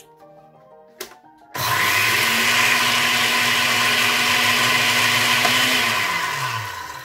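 JSW countertop blender grinding dry flax seeds in its glass jar: the motor starts about a second and a half in and runs at a steady pitch, then is switched off near the end and winds down, its pitch falling.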